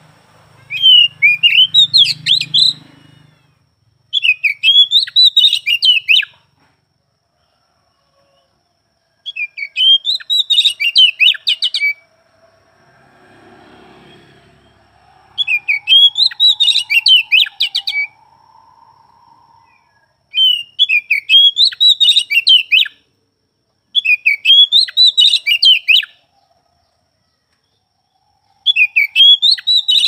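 Oriental magpie-robin (kacer) singing loud phrases of a couple of seconds each, seven in all, each a rapid run of high, quickly changing notes, with short pauses between them.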